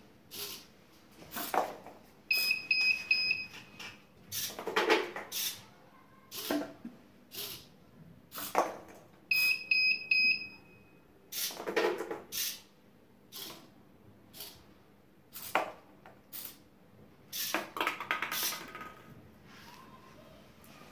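Plastic balls dropping from an Arduino ball robot, knocking and rattling down its clear plastic funnel and column into the cup below, about a dozen separate knocks. Twice, a few seconds in and again near ten seconds in, a small electronic buzzer gives a quick run of short, high beeps lasting about a second.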